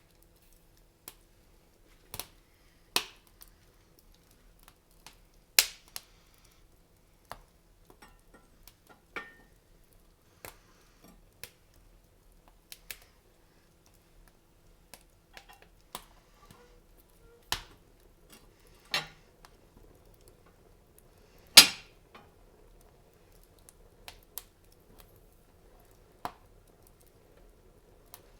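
Wood fire crackling in a fireplace: irregular sharp pops and snaps with quiet gaps between them, the loudest pop about three-quarters of the way through.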